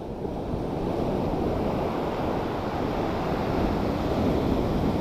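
Sea surf rushing and washing in as a steady churn of whitewater, building over the first second and then holding.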